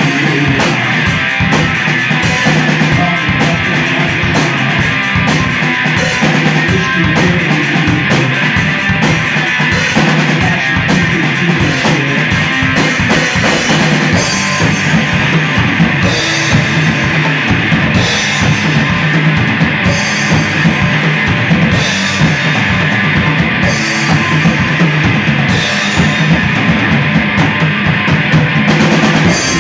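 Live rock band playing loud and dense: distorted electric guitar, bass and a drum kit with steady crashing cymbals.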